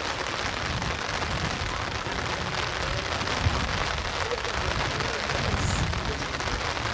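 Steady hiss of rain falling, with an uneven low rumble underneath and a single sharp thump about three and a half seconds in.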